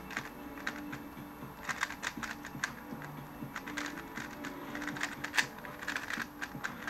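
Rapid, irregular clicking and clacking of a 3x3 Rubik's-style speedcube being turned by hand during a fast solve, with one sharper click about five seconds in.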